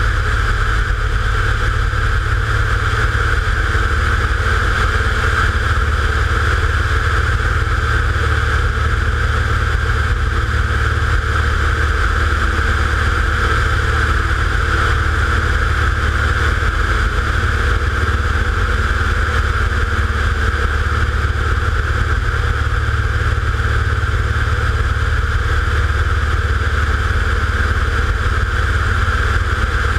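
A small quadcopter drone's electric motors and propellers in steady flight: a constant high whine over a low hum.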